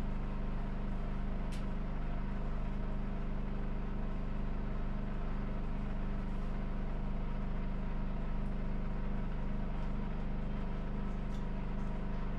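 A steady, unchanging mechanical hum from a running motor, made of many even tones. A few faint short clicks sound over it, one a second or so in and a few more near the end.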